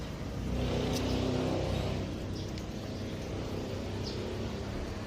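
A motor vehicle engine running steadily, swelling slightly in the first two seconds, with a few faint high chirps over it.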